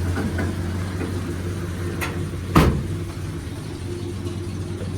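The 1946 Hudson Commodore Eight's flathead straight-eight engine idling steadily and smoothly, with a single loud clunk about two and a half seconds in.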